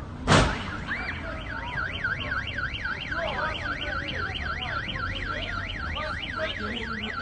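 A single sharp knock, then about a second later a car alarm starts, its tone sweeping rapidly up and down, about four sweeps a second.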